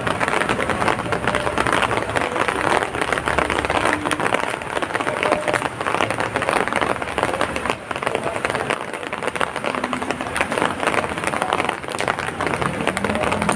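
Heavy rain falling steadily, a dense hiss made of countless small drop impacts.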